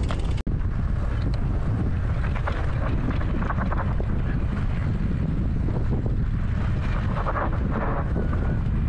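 Wind buffeting the microphone while riding, with an enduro motorcycle engine running underneath. The sound cuts out briefly about half a second in.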